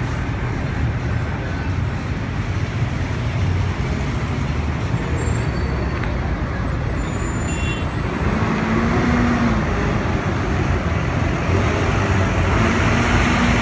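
City street traffic: the steady low rumble of heavy vehicle engines, growing louder over the last few seconds as a vehicle draws near.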